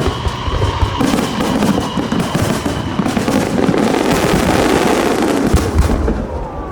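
Aerial fireworks going off in a dense barrage: rapid crackling with deep booms mixed in. The crackle dies away near the end.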